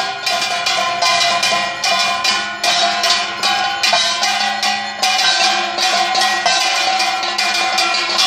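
Metal bells struck in a quick, steady rhythm of about three strokes a second, their ringing tone carrying on between strokes, as ritual percussion accompanying the chariot.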